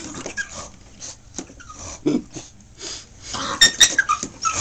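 Pug growling, whining and yipping in short bursts, agitated by a vacuum cleaner: a low growl about two seconds in, then sharp high yips and squeaky falling whines near the end.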